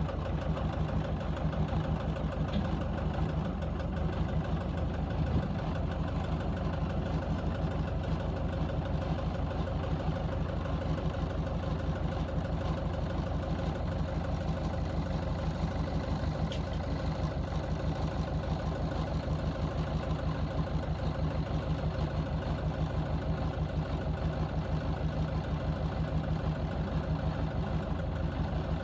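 Bobcat 863 skid steer's diesel engine idling steadily.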